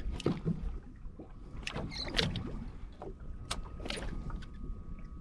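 Scattered knocks and clatters on board a small fishing boat over a steady low rumble of wind and water, with a faint steady high tone.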